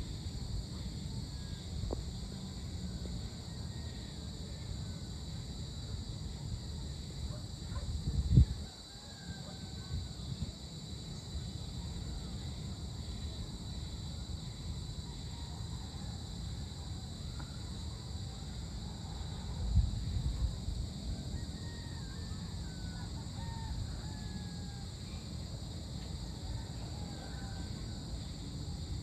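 Evening outdoor ambience: a steady high insect drone under scattered short bird calls, over a low rumble that swells twice, about eight and twenty seconds in.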